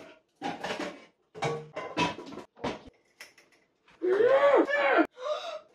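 A person's voice: short bursts of vocal sound, then about four seconds in a loud, drawn-out vocal sound lasting about a second, its pitch swinging up and down.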